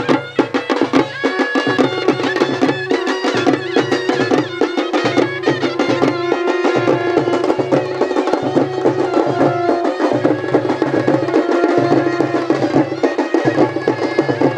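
Telangana folk-style devotional song in a DJ remix, with fast, dense drumming over a melody and a deep bass pattern that repeats about every second and a half.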